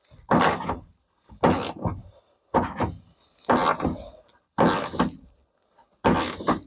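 Hand ratchet worked in repeated strokes on a stubborn seat belt anchor bolt, with a burst of clicking and knocking about once a second.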